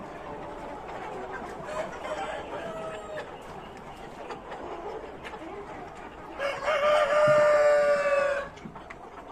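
Chickens calling softly, then a rooster crows once, loud and about two seconds long, near the end.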